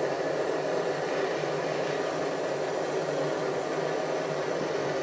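Jeweller's gas torch burning with a steady hiss, its flame played over a ring's joint to heat the silver solder pallions until they melt.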